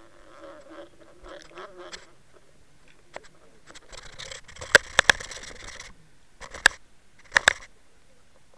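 Sharp knocks and clicks picked up through an underwater camera housing on a jigged bucktail rig, with a scraping rush in the middle. Three knocks cluster about five seconds in, another follows, and a close pair comes near the end.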